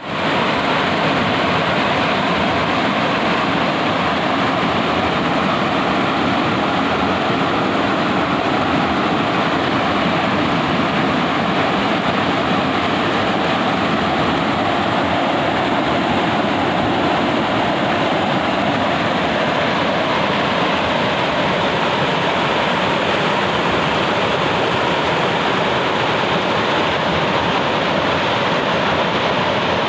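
River water rushing steadily, an even, unbroken noise of flowing water.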